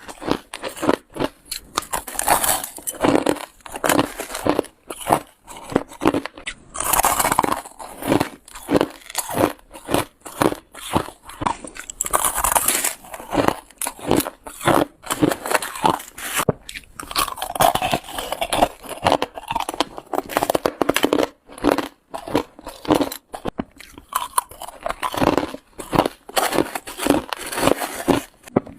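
Ice being bitten and crunched between the teeth: a continuous run of sharp, crackly crunches, several a second, without pauses.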